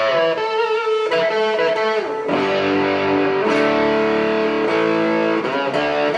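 Epiphone ET270 electric guitar with 1960s EKO pickups, its treble rolled all the way off, played through a 5F4 tube amp with an overdrive pedal, light compression and reverb. It plays held chords and single-note lines, with new notes every second or two.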